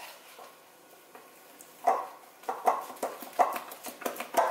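Silicone spatula stirring and folding thick almond-flour cake batter in a glass mixing bowl, with quick squelching, scraping strokes about three a second, starting about two seconds in.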